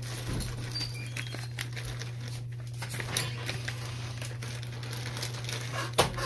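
Faint rustling and small handling noises over a steady low hum, with one sharp knock about six seconds in.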